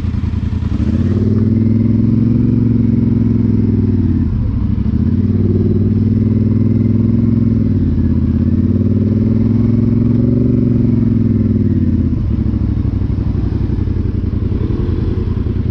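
Polaris Sportsman 850 ATV's parallel-twin engine through an MBRP aftermarket exhaust, running under throttle on a trail. Its pitch climbs and falls in three surges and drops back about twelve seconds in.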